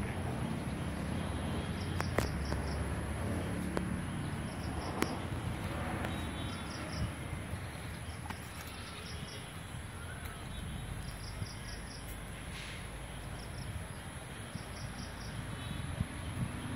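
Insects chirping in short trains of four or five quick pulses that repeat every second or two, over a steady low rumble with a few sharp clicks.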